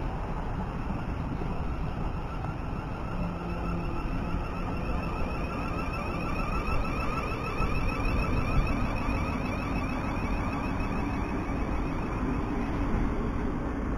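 Passenger multiple-unit train running along the platform, a steady rumble of wheels on rail. A thin whine comes in a few seconds in and fades shortly before the end.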